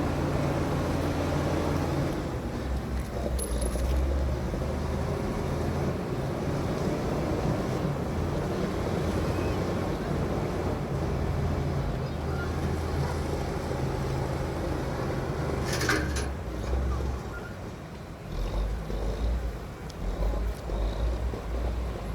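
Bulldozer's diesel engine running steadily with a low rumble. A few sharp clanks come about two-thirds of the way through, after which the engine note drops and rumbles unevenly.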